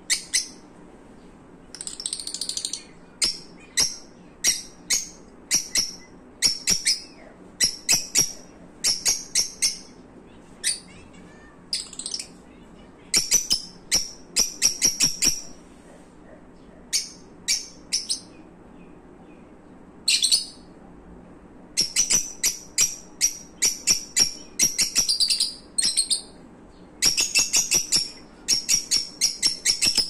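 Lutino peach-faced lovebirds chirping: sharp, high-pitched chirps in quick clusters, with short pauses between the runs.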